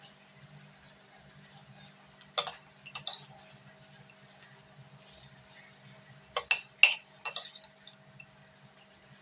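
A kitchen utensil clinking sharply against a dish while bacon is spread onto the bread: a couple of clinks about two and a half seconds in, then a quicker run of four from about six to seven and a half seconds.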